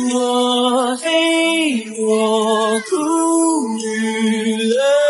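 Song with a single singing voice holding long notes with vibrato, gliding up and down between pitches.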